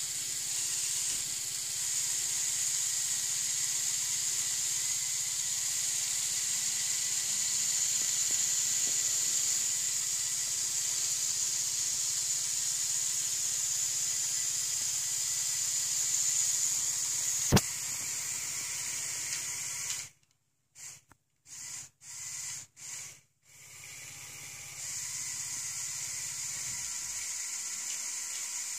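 Lego Technic 42009 Mobile Crane's Power Functions motor and gear train running steadily as the boom is lowered, a high whir with a faint low hum. There is a single sharp click a little past halfway. The sound then cuts in and out for a few seconds before running steadily again near the end.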